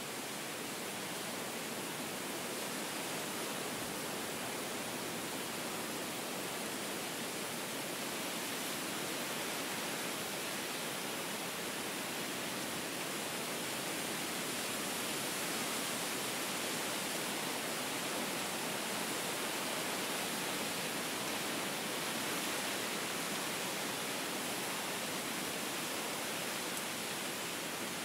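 Steady wind ambience: an even rushing hiss with no gusts, bird calls or other sounds standing out.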